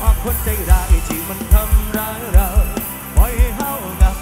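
Live band music played through a large outdoor concert PA system: a heavy kick drum and bass, with the beats falling in pairs, under a gliding melody line.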